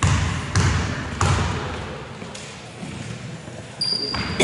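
A basketball bounced three times on a wooden sports-hall floor, about two bounces a second, each with an echoing tail: a free-throw shooter's dribble before the shot. Near the end there is a short high squeak.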